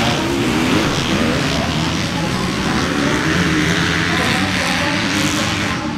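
Dirt bike engines running hard on a motocross track, with a wide rasp that swells in the middle and eases near the end.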